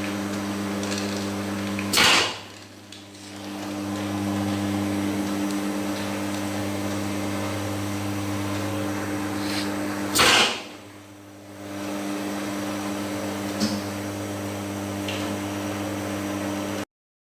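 Capsule filling machine running with a steady electric hum. Two loud, short noisy bursts come about eight seconds apart, with a few faint clicks later.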